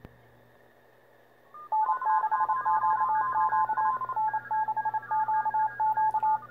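Morse code (CW) signals played through the transceiver's small speaker. After about a second and a half of faint band hiss, several stations' keyed tones come in at different pitches and overlap one another: a 20-metre pileup.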